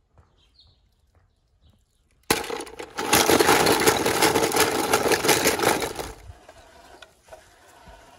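A brief hush, then a loud, rapid rattling and scraping starts abruptly about two seconds in. It runs for about four seconds and drops to a faint scraping.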